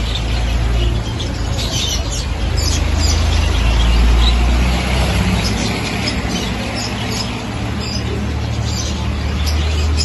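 Many caged budgerigars and lovebirds chirping and chattering together in quick, short high calls, over a steady low rumble.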